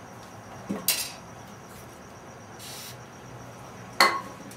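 Metal engine parts, the bearing caps and bearing shells of a Ford 302 V8, clinking and knocking as they are handled. There are two knocks about a second in, a brief hiss near the middle, and a sharp ringing clink about four seconds in, the loudest sound.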